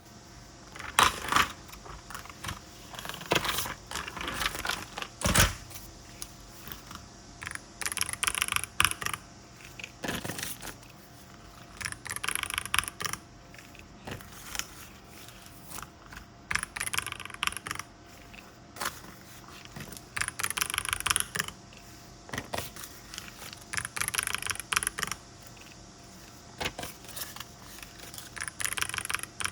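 Paper banknotes and envelopes being handled for cash stuffing: short bursts of rapid, crisp paper crackling about every four seconds, with single sharp taps and knocks in between, the loudest of them in the first six seconds.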